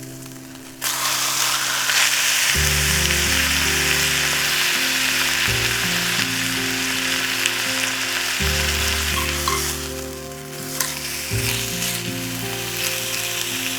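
Food sizzling and frying in a hot pan, starting suddenly about a second in and holding steady, easing for a moment late on before picking up again.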